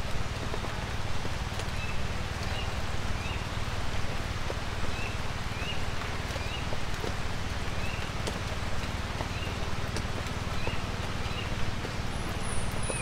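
Steady light rain pattering in woodland, with scattered drips over a low, steady rumble. A short rising chirp from a small creature repeats about once a second.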